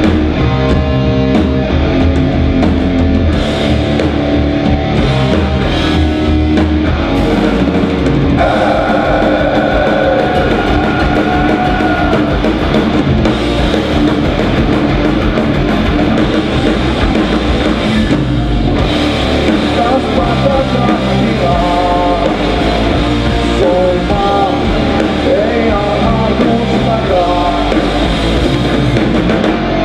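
Live heavy metal band playing an instrumental passage: distorted electric guitars, bass guitar and a drum kit, steady and loud. A long held note sits over the band about eight seconds in, with more lead melody in the second half.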